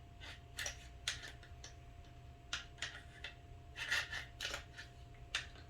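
Light metallic clicks and scrapes from a Glock 34 Gen 5 pistol's slide and frame being handled and worked together after lubrication. About a dozen scattered clicks, a few louder ones around the middle.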